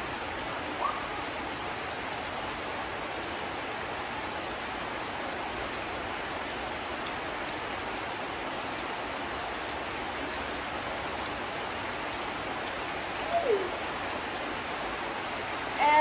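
Steady rain falling, an even hiss, with one short falling cry near the end.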